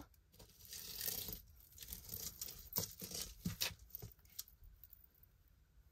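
Faint handling noise as pieces of costume jewelry are picked up and moved: a soft rustle lasting about a second, then a few light, sharp clicks and taps.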